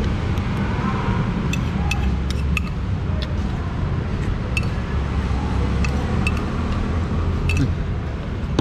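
Steady rumble of road traffic, with scattered short, sharp clicks and clinks over it.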